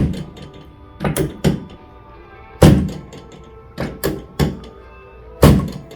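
Chiropractic adjustment thrusts on a patient lying on the adjusting table: a series of about eight sharp thunks, the three loudest coming about every three seconds, over background music.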